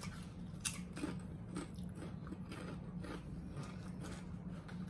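A person crunching and chewing a Doritos tortilla chip, in irregular crisp crunches.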